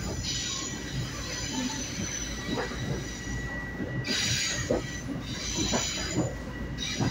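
Long Island Rail Road train running at speed, heard from inside the passenger car: a steady rumble with irregular wheel clicks and repeated short bursts of hiss. Another train passes close alongside from about four seconds in.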